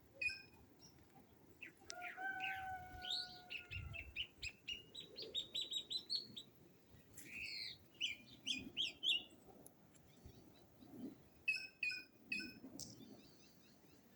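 Several birds singing and calling: short calls, a long level whistle, a fast run of high notes, then falling notes and a quick group of three calls near the end.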